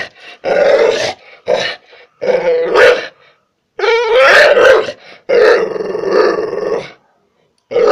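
Pit bull barking in five loud, drawn-out bursts, several lasting a second or more, with short silent gaps between them.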